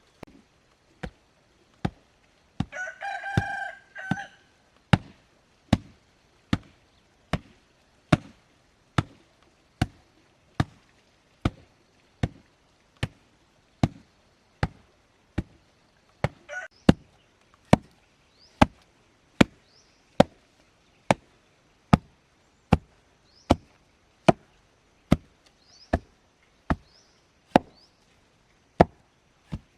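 Steady, evenly paced blows of a hand tool, a little more than one a second, with a rooster crowing once about three seconds in and briefly again near the middle. Faint high chirps sound in the second half.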